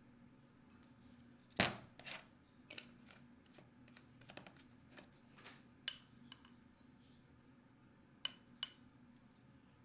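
Faint scattered taps and clicks of kitchenware being handled, with three short ringing clinks, like a utensil against a bowl: one about six seconds in and two close together near the end.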